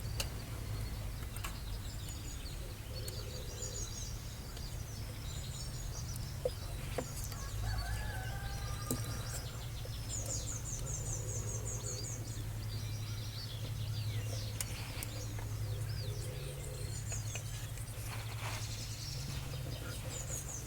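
Small birds chirping and trilling over a steady low hum, with a few faint clicks.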